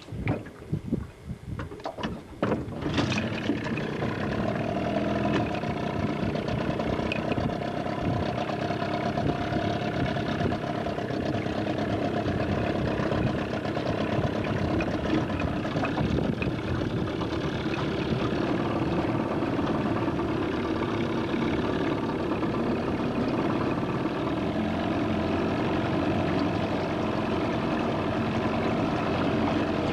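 20-horsepower outboard motor pull-started by its cord, catching about three seconds in and then running steadily.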